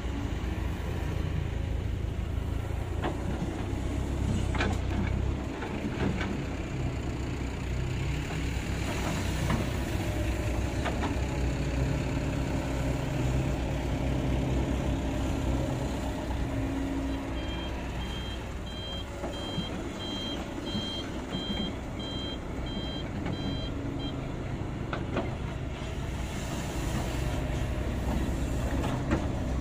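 Kobelco hydraulic excavator's diesel engine running, its note rising and falling as the bucket digs soil, with a few sharp knocks from the bucket and arm. About two-thirds of the way through, a reversing alarm beeps steadily, roughly once a second, for several seconds.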